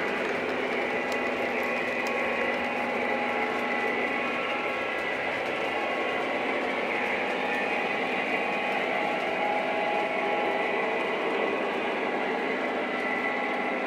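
Lionel O-gauge model trains running on the layout's track: a steady mechanical hum and rumble of electric motors, gears and wheels, with several held tones.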